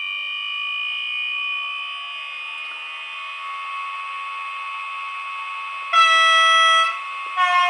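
Sound decoder of a Piko HO E494 electric locomotive model playing through its small speaker: a steady electric whine of the locomotive standing with power on, then two horn blasts about a second long each, the second pitched slightly higher.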